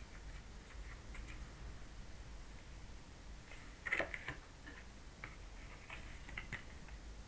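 Faint clicks and soft taps of tarot cards being handled, with a short cluster of them about four seconds in.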